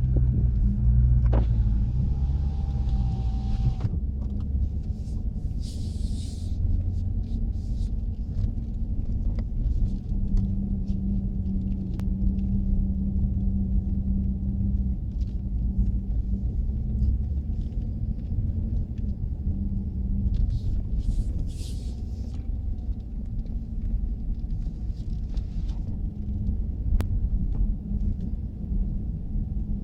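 Chrysler 300 SRT Core driving in tight low-speed circles: a steady low rumble with a rotating, howling drone from the rear end that swells for several seconds around the middle. The owner asks whether the howl is the rear differential or something else.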